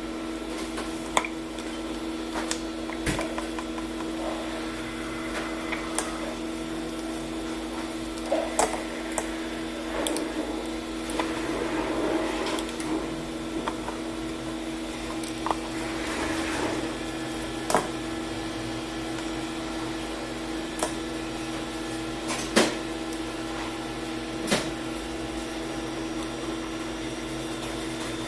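A steady electrical hum with scattered sharp clicks and knocks of small parts being handled, about eight of them spread across the stretch, and a few short bursts of rustling near the middle.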